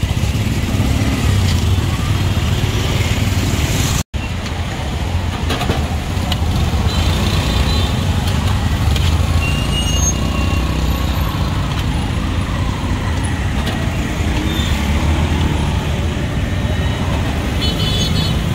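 Street traffic noise: a steady low rumble of passing cars and motorbikes, briefly cutting out about four seconds in. A short run of rapid high pulses comes near the end.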